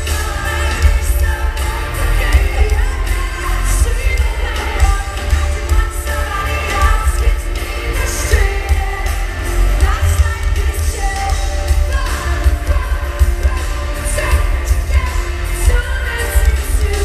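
Live pop-rock band with a woman singing lead, guitars, keyboards and drums, heard in a large arena with heavy bass.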